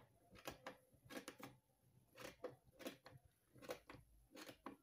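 Faint, scattered soft clicks and rustles of a hand handling and smoothing a knitted scarf's yarn fringe.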